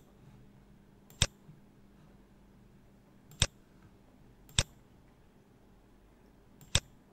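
Four sharp computer mouse clicks, spaced one to two seconds apart, over a faint steady hum.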